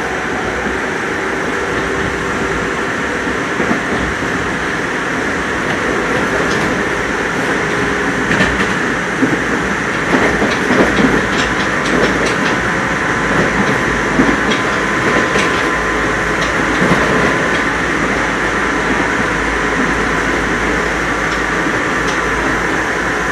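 Running sound of a Nagoya Municipal Subway 3000 series chopper-control electric train at speed, heard inside the car: steady rolling noise of wheels on rail, with a run of clicks from the wheels over the track through the middle.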